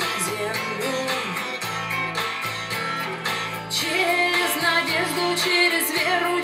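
Aiwa NSX-999 mini hi-fi system playing a song with a singing voice over a band, heard through its loudspeakers in the room.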